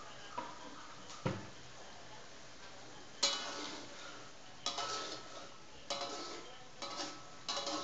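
Metal spatula knocking and scraping against an aluminium wok while turning frying fish: about seven clanks, the louder ones from about three seconds in, each ringing briefly.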